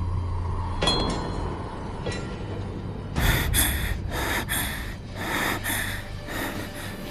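Rapid, frightened gasping breaths, in and out in quick pairs, starting about three seconds in, over a low droning music bed. Before them, about a second in, comes a single sharp metallic ring like a blade strike.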